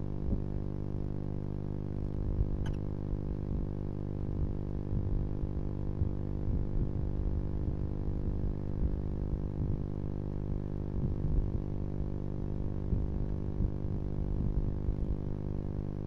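Steady low electrical hum made of many evenly spaced tones, typical of a nest-box camera's microphone. Over it come soft, irregular low bumps and scratches as the barn owls shift and preen on the wood-chip floor, with one faint click a few seconds in.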